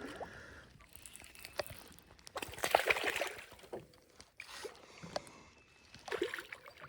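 Water splashing and sloshing with small knocks and clicks of handling in a kayak as a small bass is landed. The loudest burst comes about three seconds in and a smaller one near the end.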